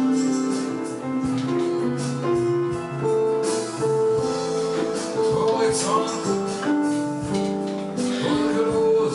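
Roland arranger keyboard playing a slow song: a melody of held notes over chords, with a steady programmed drum beat.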